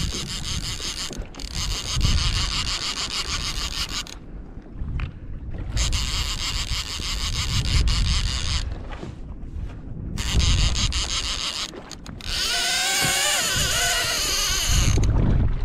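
Fishing reel drag buzzing and clicking as a big fish runs and pulls line off a conventional reel, in four bursts of one to three seconds with short pauses between. Near the end it turns into a longer, wavering whine. Wind and water rumble on the microphone underneath.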